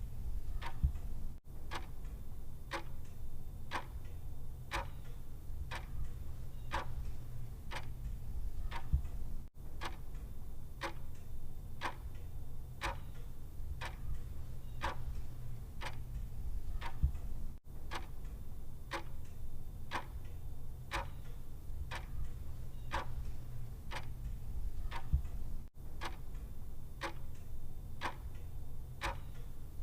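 Mechanical clock ticking steadily, about two ticks a second, over a low steady hum, with a brief dropout every eight seconds or so.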